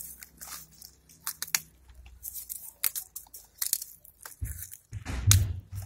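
Crackling and tearing of green onion stalks and papery skins being pulled apart by hand, in short irregular snaps. Near the end come a few dull low thumps, the loudest sound here.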